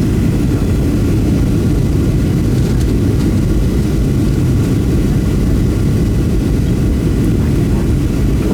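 Steady cabin noise inside a Boeing 737-700 airliner in flight: an even, low rumble of the jet engines and airflow, with no sudden changes.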